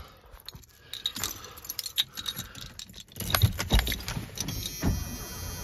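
A bunch of keys jangling and clicking against the steering column as the ignition key is worked into the ignition and turned, with a few low knocks in the second half.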